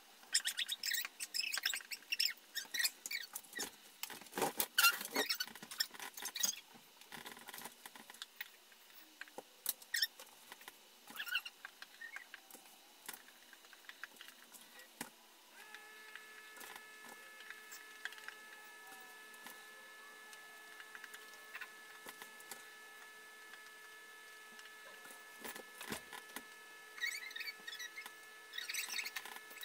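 Paintbrush strokes scratching and squeaking against a drywall wall as paint is cut in along the ceiling line, in quick irregular strokes, densest in the first half and again near the end. About halfway through a faint steady hum comes in underneath.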